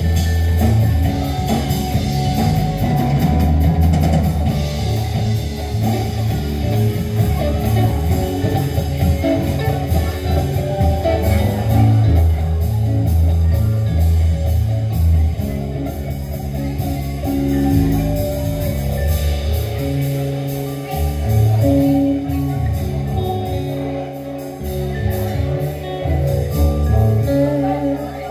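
Live band playing an instrumental passage: electric guitar, electric bass with a moving line, drum kit and a vibraphone together.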